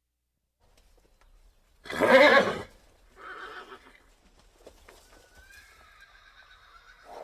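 Horse neighing: one loud call about two seconds in, then a softer one about a second later, with faint hoofbeats on sand between and after.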